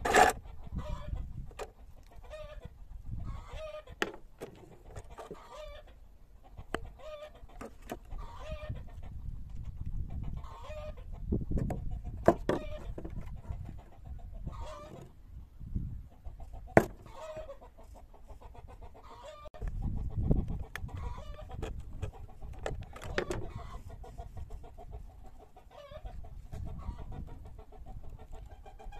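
Chickens clucking repeatedly, with a few sharp clicks and taps of plastic bottles being handled.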